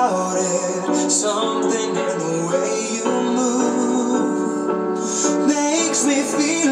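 Music: a man singing a song into a microphone over a recorded instrumental backing track, the melody held and moving continuously.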